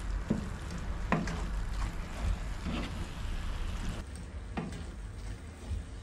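A wooden spatula stirring a panful of vermicelli and vegetable filling as it fries: a steady frying hiss, with a few short scrapes of the spatula against the pan.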